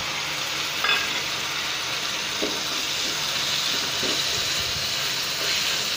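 Freshly added chopped tomatoes and onions sizzling in hot oil in a kadhai, a steady hiss. A steel spatula stirring them makes a few light clicks and scrapes, the clearest about a second in.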